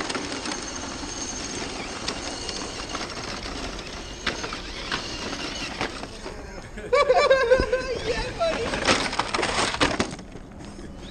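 A scale RC crawler truck grinding and crunching over dirt and loose rocks, with scattered clicks of stones. About seven seconds in a person gives a short shout, and soon after comes a run of clattering knocks as the truck tips over onto its side.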